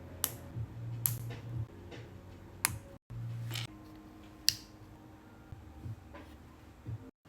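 Lego pieces and packaging being handled, with about five sharp plastic clicks and taps spread over a few seconds. The sound drops out briefly twice at edit cuts.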